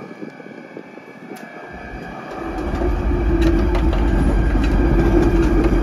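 Vossloh DE18 diesel-electric locomotive passing close by. Its engine drone grows louder from about two seconds in, with a steady hum and a few sharp clicks as it goes past.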